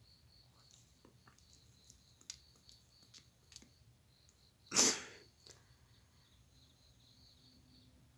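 A woman sneezing once, loud and sudden, about five seconds in. A few faint sniffs come before it.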